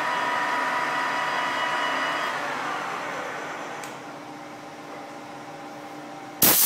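Metal lathe running with a steady whine of several tones, then spinning down: the tones slide lower and fade from about two and a half seconds in. Just before the end a sudden loud burst of hiss starts.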